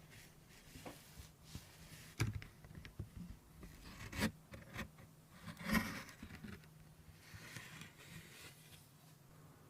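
Hands working with craft materials and tools: scattered light knocks and clicks, with short scraping and rustling noises, over a faint steady hum.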